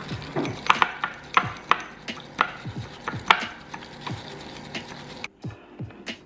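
Background music with a deep, falling bass beat, over a run of irregular sharp mechanical clicks and rattles in the first few seconds.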